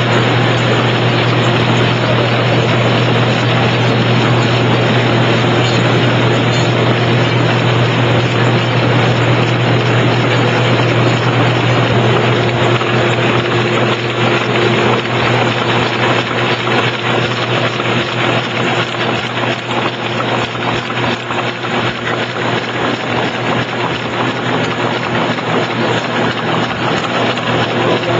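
Rollem BCSii business card cutting and slitting machine running: a steady, loud mechanical drone with a strong low hum.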